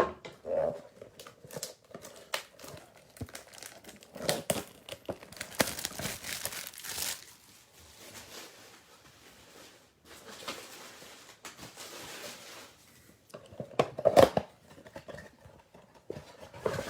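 Plastic wrapping being torn and crinkled off a cardboard box of trading cards as the box is opened, in irregular rustling and crackling spells with a few louder tears.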